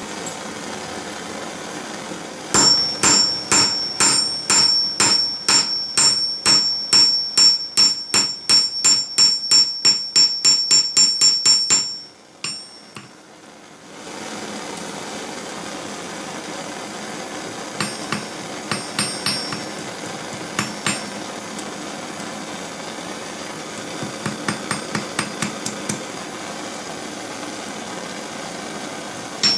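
Cross peen hammer striking metal on a small stake anvil in a fast run of about three blows a second, each with a bright ring, for about ten seconds. After a short pause, a steady hiss follows, with a few lighter, quicker taps.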